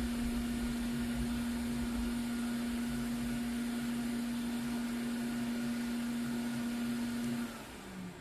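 A small electric motor running steadily with a constant high hum. It is switched off near the end and winds down, its pitch falling.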